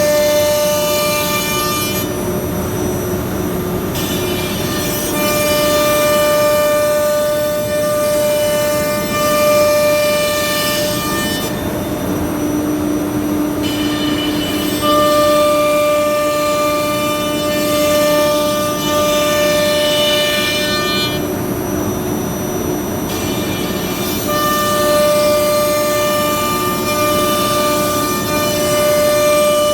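CNC machine running: steady whining tones that drop out and come back every few seconds as its motors change speed, over a rushing noise.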